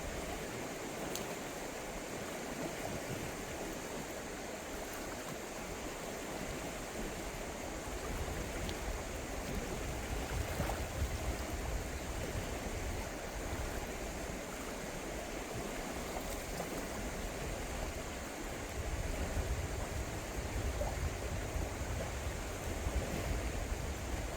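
The Shenandoah River flowing: a steady rush of moving water. Low rumbles join it from about eight seconds in and again near the end.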